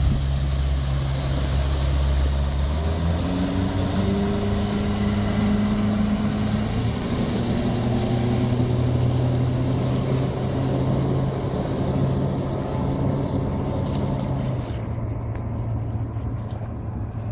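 Yamaha outboard motor on a cuddy-cabin motorboat running at speed as the boat passes and heads away. Its note rises a few seconds in and then holds steady.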